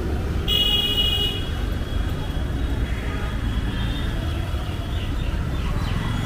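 Busy city street traffic with a steady rumble of passing vehicles, and a short vehicle horn blast about half a second in.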